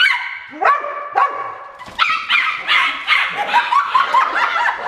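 Dogs barking, high-pitched and sharp, some barks rising in pitch, then a quick run of about three barks a second from about two seconds in.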